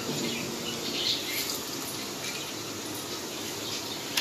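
Gulgule, fritters of thick jaggery and wheat-flour batter, sizzling steadily as they deep-fry in hot oil in a wok.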